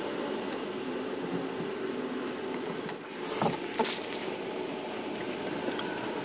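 A steady mechanical hum in the background, with two sharp knocks about half a second apart a little past the middle.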